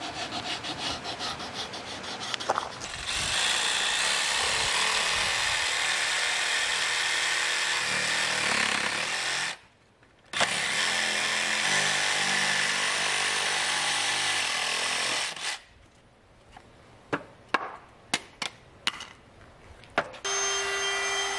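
Cordless jigsaw cutting a round hole through a wooden board, in two long runs with a short stop about ten seconds in. Then come a few sharp knocks, and near the end a small power tool's motor starts up and runs with a steady hum.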